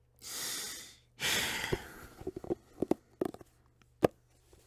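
A drawn-out breathy sigh, then rustling and a scatter of soft knocks and clicks of things being handled, with one sharp click about four seconds in.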